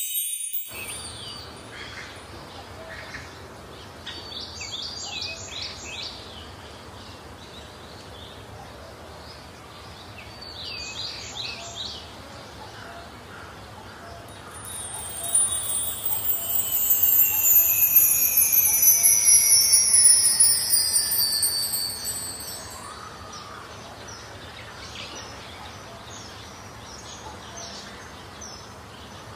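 Wind chimes tinkling in two short clusters over a steady hiss, then long, slowly falling high tones that swell loud for several seconds before fading.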